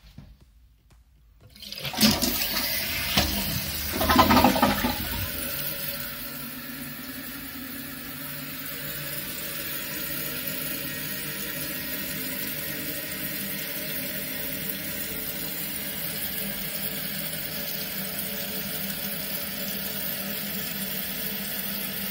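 First test flush of a Kohler toilet fitted with a new flush valve and silent fill valve. A rush of water starts about two seconds in and is loudest around four seconds. By about six seconds it settles into the steady hiss of the fill valve refilling the tank, a sign that the flush worked.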